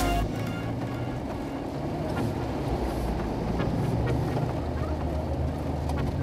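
Jeep Wrangler JL driving slowly along a dirt trail, heard from inside the cabin: a steady low engine and drivetrain drone with tyre rumble over the dirt and a few faint clicks.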